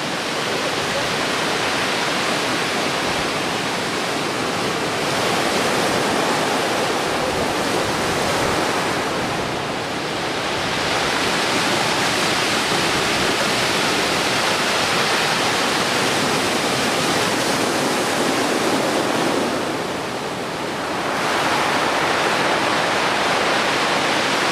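Heavy typhoon swell breaking in closed-out surf: a continuous, loud rush of crashing waves and whitewater that eases briefly about ten and twenty seconds in.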